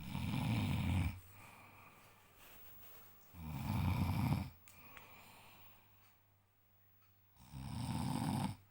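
A man snoring: three snores about a second long, some four seconds apart, with quieter breathing between.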